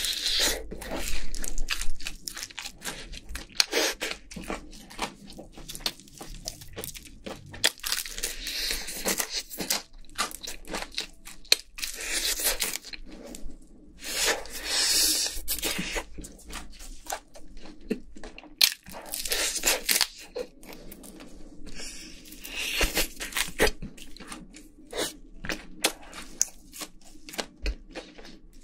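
Close-miked biting and chewing of crispy-skinned fried chicken: the crisp skin crackling and crunching and the meat tearing, in repeated bursts of crunches between quieter chewing.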